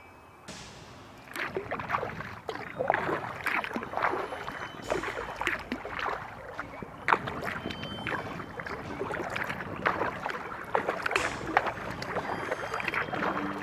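Kayak paddle strokes: the paddle blades dipping and pulling through calm water, with irregular splashing and dripping that starts about a second in.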